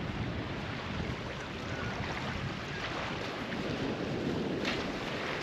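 Steady rush of waves and surf mixed with wind noise, with no distinct events.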